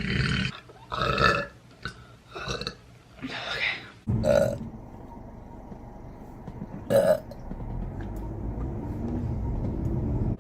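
A woman burping repeatedly: a quick run of short burps in the first four seconds, then two more short, loud burps about four and seven seconds in, over a low steady hum.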